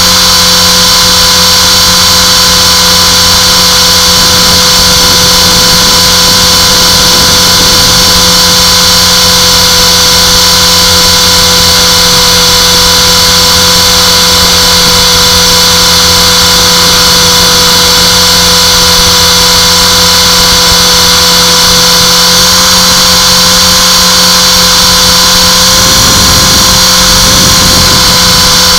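Align T-Rex 450 electric RC helicopter running steadily in flight: a loud, unchanging whine from its brushless motor and gears, with rotor noise.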